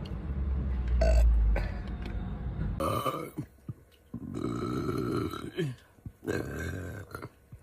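A woman burping several times: a long, low burp near the start, the loudest of them, then shorter, higher-pitched burps about three, four to five and six seconds in.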